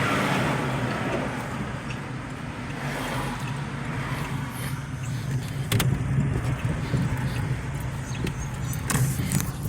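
Car driving at low speed, heard from inside the cabin: a steady low engine and road hum, with a few light clicks about six and nine seconds in.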